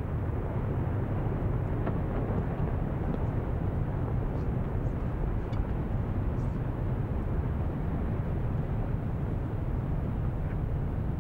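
Explosive-triggered powder snow avalanche running down a mountainside: a steady deep rumble.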